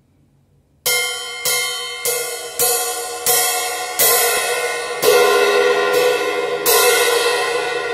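Chateau cymbal struck with a wooden drumstick about nine times, roughly one stroke every two-thirds of a second, starting just under a second in; each stroke rings on, so the wash builds up and then fades slowly near the end.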